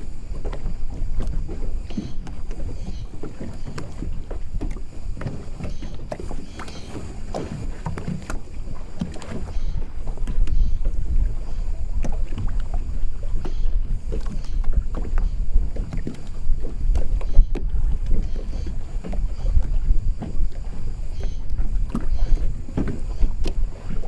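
Harbour water lapping and slapping against a moored small boat and the quay, with irregular small knocks. A low wind rumble runs underneath.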